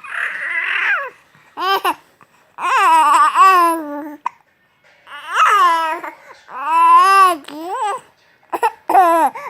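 A baby babbling in a string of about six drawn-out, high-pitched vocal sounds that bend up and down in pitch, with short pauses between them. The first sound is breathy.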